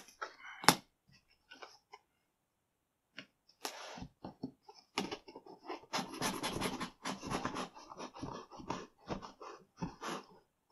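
A sharp click about a second in. From about three seconds in, a run of crackly scraping and rasping as a cardboard shipping box is handled and its packing tape is cut with a pocket knife.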